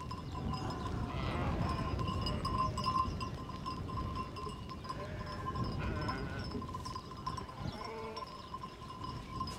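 Sheep bleating, several separate calls from the flock, some higher-pitched than others. Underneath is a low rumble of wind on the microphone.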